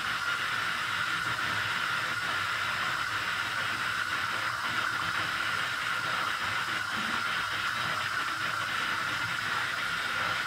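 Bathtub tap running, water pouring steadily into a filling tub, with light sloshing as someone moves in the water.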